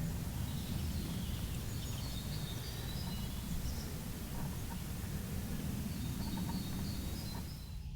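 Woodland ambience: a steady hiss with a low rumble, and small birds chirping faintly a few times.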